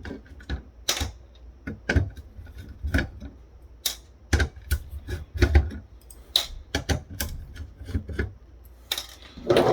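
Irregular clicks and light knocks of plastic parts being handled during the shipping scale's disassembly, with a denser clatter near the end.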